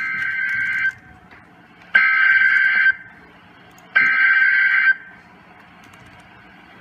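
NOAA Weather Radio's SAME digital alert header: three one-second bursts of harsh, buzzing two-tone data, each a second apart. It is the encoded header that opens an Emergency Alert System Fire Warning.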